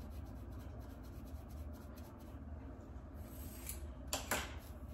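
Plastic fine-toothed comb scraping through hair against the scalp in quick, repeated short strokes, loosening dandruff flakes. About four seconds in comes a louder, brief scratchy rustle.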